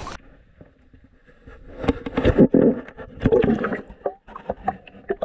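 Water sloshing and gurgling as a largemouth bass is lowered by hand into the river beside a kayak and released, rising in two louder surges. It is heard muffled through a waterproof camera at the waterline.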